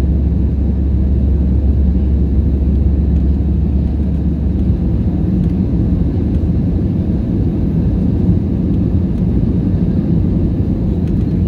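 Steady cabin rumble inside an Airbus A320neo on approach: airflow noise and the drone of its Pratt & Whitney PW1100G geared turbofan engines, heard from a window seat by the wing. The deepest part of the rumble eases about four and a half seconds in.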